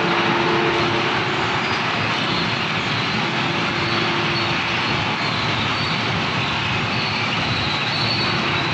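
Horizontal wood grinder running and shredding wood, with its discharge conveyor carrying the chips onto a pile. The sound is a loud, even mechanical roar with a faint steady whine over it.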